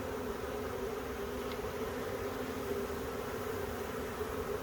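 A honey bee swarm buzzing: a steady, even hum of many bees.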